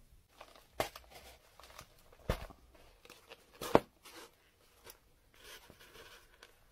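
Close handling of a leather cover while a cord is stitched through it: soft rustling of the leather, with three sharp clicks about a second and a half apart, the last the loudest.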